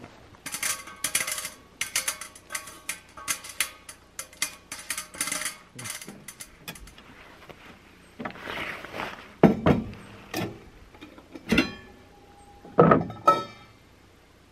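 Stainless steel camp stove and cookware being handled: a quick run of metallic scrapes and clicks with a ringing edge through the first half, a rustle near the middle, then several loud clanks of a metal pot and lid.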